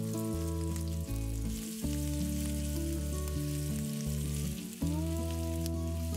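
Chicken meatballs and garlic sizzling in oil in a stainless steel frying pan, being turned with a silicone spatula. Instrumental background music plays over it, with held chords that change every couple of seconds and sit louder than the sizzle.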